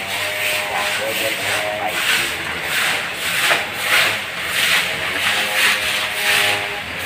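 Dry leaf litter scraping and rustling in rhythmic scratchy strokes, about two a second.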